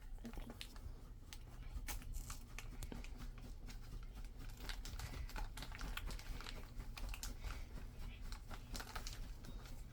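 Gift wrapping crinkling and crackling in a child's hands as he tries to tear a small present open, with many small irregular crackles and a little tearing, not getting through it.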